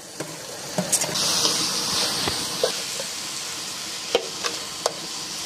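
Chopped tomatoes sizzling as they land in hot oil with onions and green chillies in a metal kadai; the frying hiss swells about a second in. A slotted metal spoon scrapes and clicks against the pan several times as the mix is stirred.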